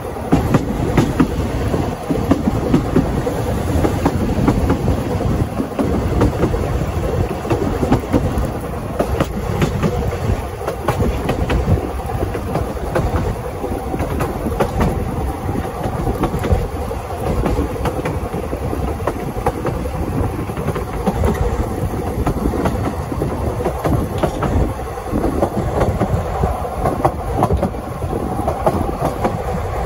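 Narrow-gauge train running steadily: a continuous rumble with many rapid clicks and knocks from the wheels on the track.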